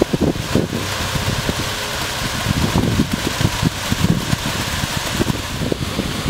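Concrete mixer truck's engine running steadily, with irregular low thumps.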